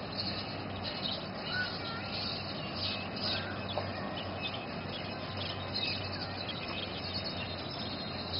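Birds chirping in short, scattered calls throughout, over a steady low hum.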